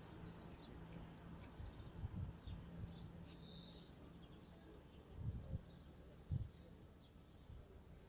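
Faint bird chirps, short and repeated, under a few low thumps: one about two seconds in and two more between five and six and a half seconds, the loudest moments. A low steady hum stops about halfway.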